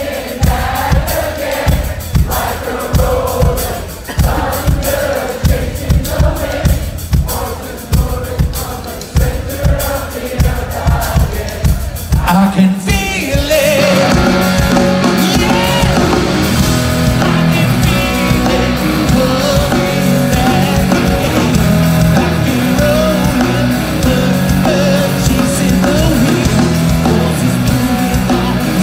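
Live rock band with a male lead vocal over a steady drum beat. About 13 seconds in, the full band with electric guitars comes in, and the music turns louder and denser as the song builds.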